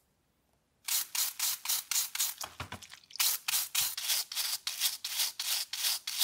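A small stiff-bristled brush scrubbing a small rubber toy wheel in quick back-and-forth strokes, about four a second, with a short pause about three seconds in.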